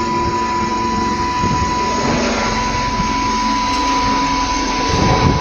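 Steady machinery noise with a constant high-pitched whine and a low rumble, typical of pumps and plant equipment running in an HVAC mechanical room.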